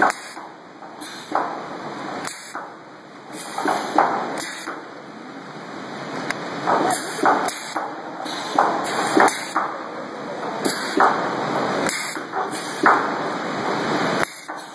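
Stud welding gun firing stud after stud into a steel plate: about a dozen short, hissing, crackling arc bursts with sharp spikes, irregularly spaced a second or so apart.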